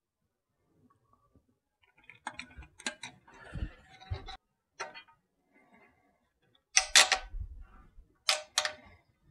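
Plastic retaining bracket being pushed onto the back of a panel-mount hour meter in a sheet-metal electrical box cover: scattered handling knocks and clicks starting about two seconds in, with a few sharp clicks near the end.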